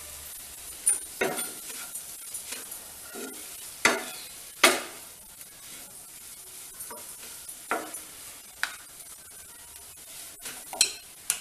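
Wooden spatulas scraping and knocking against a frying pan as soya chunks are stirred while dry-roasting on low flame, over a soft steady sizzle. The scrapes come irregularly, the loudest about halfway through.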